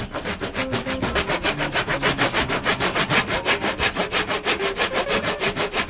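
Back saw (brass-backed tenon saw) cutting into pallet wood by hand in quick, even back-and-forth strokes, the rasp of the teeth repeating several times a second.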